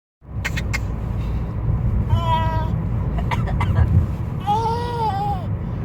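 A baby making two high-pitched squeals, one steady about two seconds in and one that rises and falls near the end, with short coughs in between, over the steady low rumble of a car cabin.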